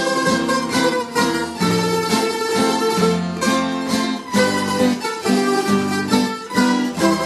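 Background music played on plucked string instruments, guitar-like, with a steady run of short picked notes.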